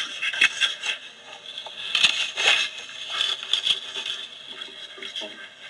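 Irregular crackling and rubbing with many scattered sharp clicks, like a handheld recording device being moved and handled against its microphone.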